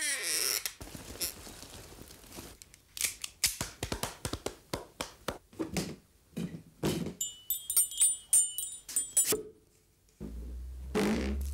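Foley sound-effect props being worked by hand: a quick series of knocks, clicks and thuds. A metallic jingling ring comes about eight seconds in, and a low hum starts near the end.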